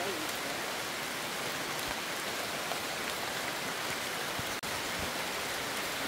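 Steady rain falling, an even hiss, cut off for an instant about four and a half seconds in.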